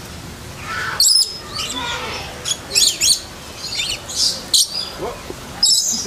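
Lorikeets and lories calling: a string of short, sharp, high-pitched screeches and chirps, several overlapping, with louder ones about a second in and near the end.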